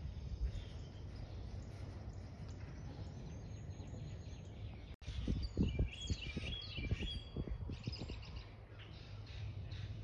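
Small birds chirping in the background over a low, uneven outdoor rumble. After a cut about halfway through, a brief run of high chirps and trills comes with low thumps on the microphone.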